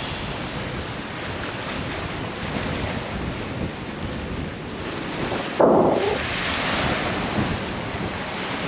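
Wind and sea noise aboard a sailboat under way: a steady rush of wind over the microphone and water churning past the hull. About five and a half seconds in, a sudden muffled whoosh stands out, louder than the rest.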